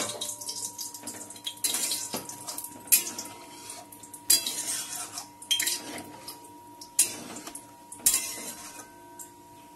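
A spatula stirring a thin, watery curry gravy in a metal kadai, knocking and scraping against the pan about six times, with the liquid sloshing between strokes.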